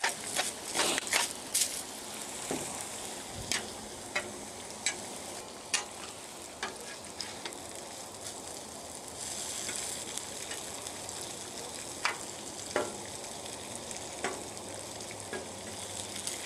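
Bacon and a vegetable hash frying on a Blackstone griddle's steel plate: a steady sizzling hiss, broken every second or so by sharp clicks and scrapes of a metal spatula on the steel as the bacon strips are turned. The sizzle grows louder about nine seconds in.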